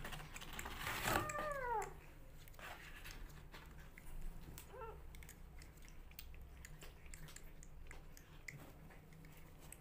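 Rescue kitten suckling at a milk bottle, with small wet clicks of sucking and chewing on the teat. A kitten gives one falling meow about a second in and a shorter, fainter one near the middle.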